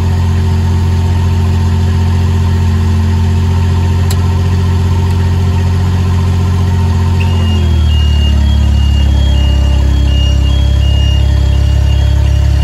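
The engine of a Skyjack SJ7127 rough-terrain scissor lift runs with a steady hum while it drives the hydraulics. About seven seconds in its note drops lower and gets a little louder, and a high, repeating beeping alarm starts.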